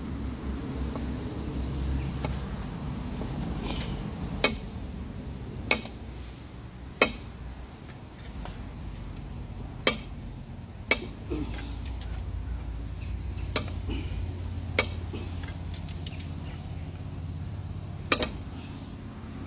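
A half-inch drive ratchet and socket forced against a large truck lug nut with a 4-foot cheater bar, giving about eight sharp metallic pops and clicks at irregular intervals as it strains, over a low rumble.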